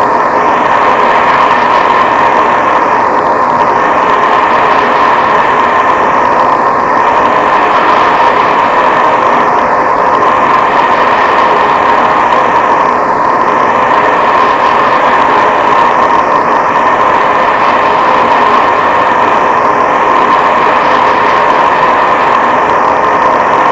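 Loud, steady static-like hiss with a faint steady tone under it, sweeping slowly about every three seconds.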